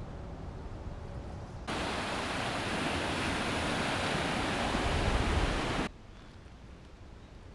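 Ocean surf washing onto a sandy beach: an even rush of breaking waves that starts suddenly about two seconds in and cuts off about four seconds later. Before and after it there is only a faint, steady outdoor background.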